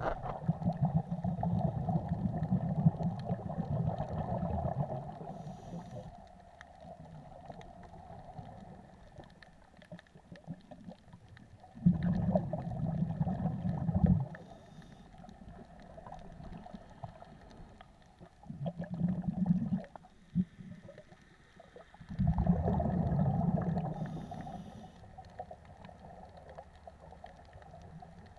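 Scuba diver's breathing heard underwater: the regulator's exhaled bubbles gurgling in bursts of two to five seconds, five times with quieter pauses between.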